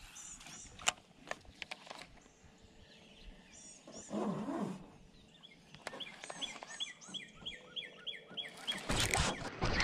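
Birds chirping and calling, with a run of quick repeated chirps, about three a second, in the middle. A sharp click comes about a second in, a short lower sound about four seconds in, and a burst of noise near the end.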